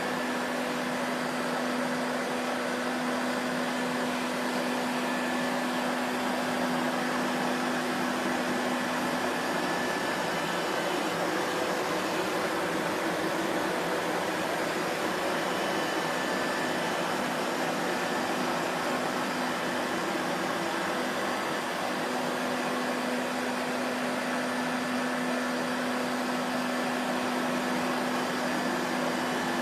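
Vacuum cleaner running steadily: an even rushing noise with a low motor hum that fades for a while in the middle and returns later.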